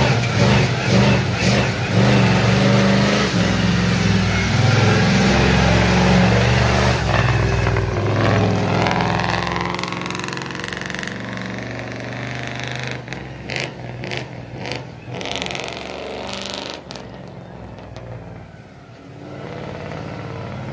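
Engine of a monster-truck school bus running loud with its pitch shifting up and down in steps, then easing off after about eight seconds to quieter running, with scattered clicks.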